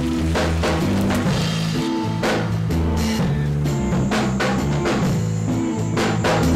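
Background music with a drum-kit beat over a stepping bass line.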